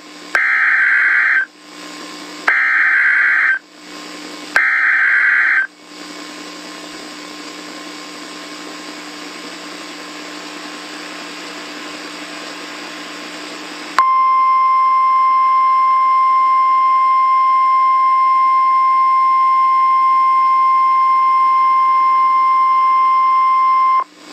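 Emergency Alert System activation over radio: three short screeching bursts of digital header data about a second apart, then several seconds of radio hiss, then a loud steady single-pitch attention tone for about ten seconds that cuts off abruptly.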